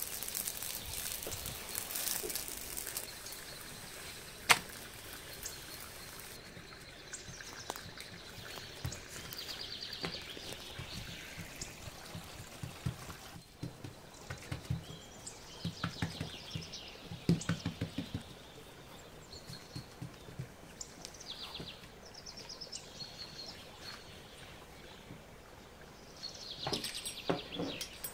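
Food frying in a pan, with a steady hiss over the first several seconds, then scattered clicks, scrapes and knocks of cooking utensils.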